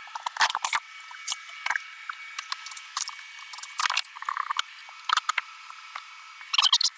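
Demolition hand work on a coach's interior woodwork and fittings: irregular clicks, knocks and scraping, bunched around half a second in, about four seconds in and near the end, over a faint steady high whine.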